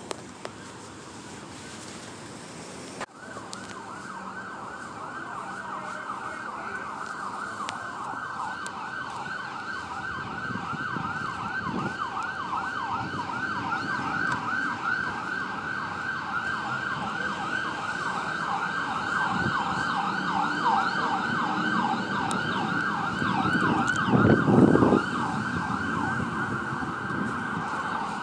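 Emergency vehicle siren in a fast yelp, rapid rising wails several a second. It starts suddenly a few seconds in and grows steadily louder. A brief, louder low blast comes near the end.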